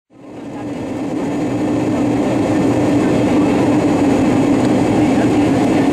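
Steady cabin noise of a Boeing 757 airliner in flight, heard from a window seat beside the wing and engine: jet engine and airflow noise with a constant low drone. It fades in over the first second or two, then holds level.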